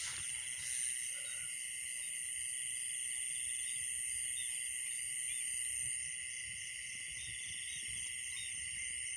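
Night-time chorus of crickets and other insects: a steady high-pitched trilling at several pitches, with faint low rustling underneath.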